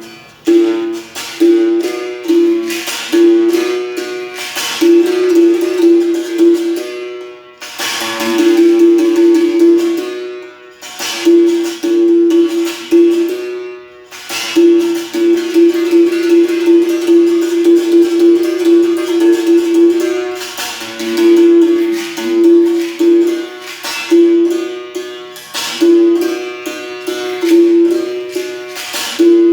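Berimbau played in a steady rhythm of sharp struck notes, mostly on one ringing pitch with drops to a lower note, broken by a few short pauses.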